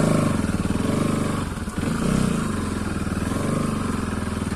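Bajaj Pulsar NS200's single-cylinder engine running while being ridden, its revs rising and falling with the throttle, with a brief dip in revs about a second and a half in.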